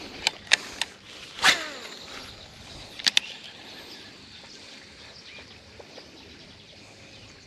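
A lure being cast with a baitcasting fishing reel: a few sharp clicks, then a swish and a falling whir of the spinning spool about one and a half seconds in, and two quick clicks near three seconds. After that there is only a low, steady outdoor background.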